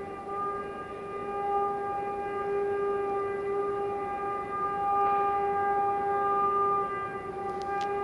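Air horn of a CFR class 060-DA diesel-electric locomotive sounding one long, unbroken blast on a single steady pitch, swelling a little in loudness. Two faint clicks come near the end.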